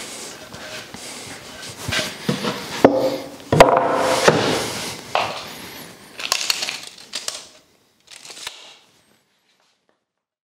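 Knocks, clatter and scrapes of a wooden board being handled and set down on a thickness planer's table, stopping about nine seconds in.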